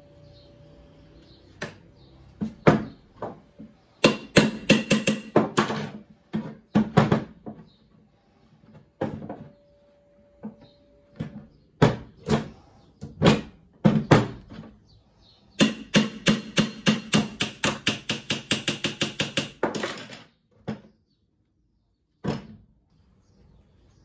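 Sharp metal knocks and clicks from a washing-machine motor's end housing and through-bolts being fitted by hand, coming in clusters, then a fast even run of about five clicks a second lasting some four seconds, and one last knock near the end.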